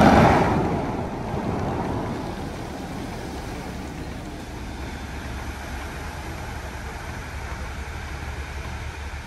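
The Dubai Fountain's water jets going off in a sudden loud rush, then fading over a couple of seconds into the steady wash of falling water and spray.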